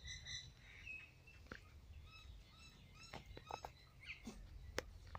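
Faint, short, high-pitched squeaks and chirps from animals, with a few sharp clicks over a low rumble.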